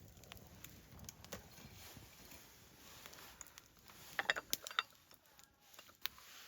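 A few faint clicks and small knocks of things being handled, with a quick cluster of louder clicks about four seconds in.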